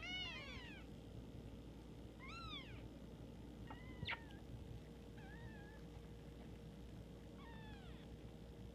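Newborn kittens mewing: about five short, high, rising-and-falling cries a couple of seconds apart, with a light click about four seconds in.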